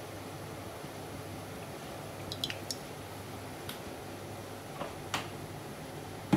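Cooking oil heating in an iron kadai on a lit gas stove: a few faint crackles and ticks over a steady low hiss, then a sharper knock right at the end.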